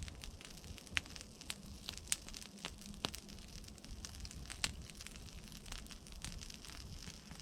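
Irregular crackling with scattered sharp snaps and pops, the loudest about one, two, three and four and a half seconds in, over a low rumble.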